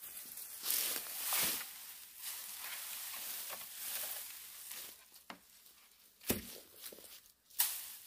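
Dry dead brush and weeds rustling and crackling as they are handled and dumped onto a pile, with steps on dry grass. A dull thud comes a little past six seconds in.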